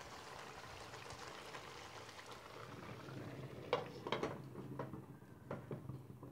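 Chicken in a ghee and yogurt marinade bubbling and sizzling steadily in a nonstick pan. About halfway through, a glass lid is set on the pan and adjusted, making several sharp clinks and knocks.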